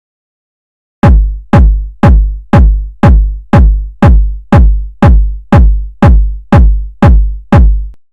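Electronic bass drum from a drum machine, a deep booming kick beating steadily about twice a second, fourteen beats, starting about a second in and stopping shortly before the end.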